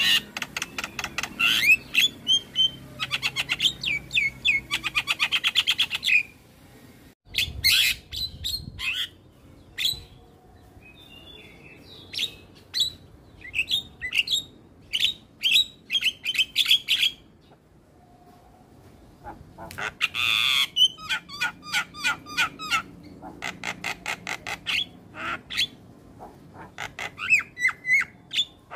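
Javan myna singing: rapid runs of short repeated notes mixed with harsh squawks, broken by brief pauses.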